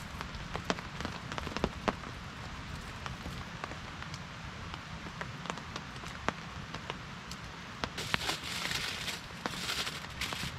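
Steady rain with irregular sharp pops and crackles from a campfire burning in the wet. A louder hiss comes in about eight seconds in.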